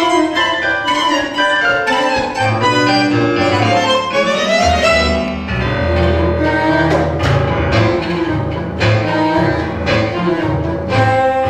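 A tango quintet playing live: bandoneón and violin over piano, double bass and guitar. A climbing run comes in the first half, and the bass notes grow heavier through the second half.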